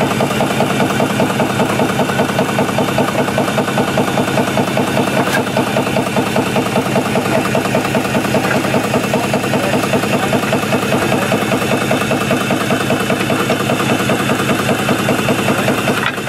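3x5x4 steeple compound steam engine running steadily, its stroke beating out a fast, even rhythm.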